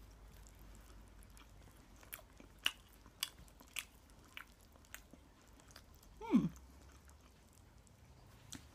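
Quiet close-up eating sounds: biting and chewing hash brown, heard as a string of soft clicks and crunches a little over half a second apart. About six seconds in comes one short sound that falls steeply in pitch.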